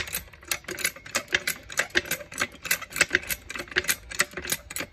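Hydraulic trolley jack being pumped to raise its saddle: rapid, irregular metallic clicking and clattering, several clicks a second.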